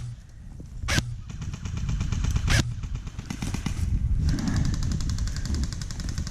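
Airsoft electric rifle, a KWA Ronin T6 AEG, firing long full-auto bursts of fast, even clicks, with a few single sharp cracks in the first seconds.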